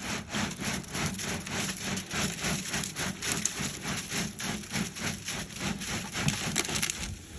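Portable cement mixer turning while tipped to pour wet concrete: a rhythmic scraping churn of concrete in the drum, about three to four strokes a second, over a steady low motor hum.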